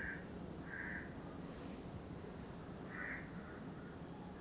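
Crickets chirping as faint background ambience: a high, regularly pulsing trill, with three short lower chirps scattered through.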